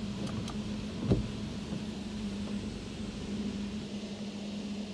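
Mark VII ChoiceWash XT automatic car wash heard from inside the car: water spraying over the body with a steady low hum, which stops near the end, and a single thump about a second in.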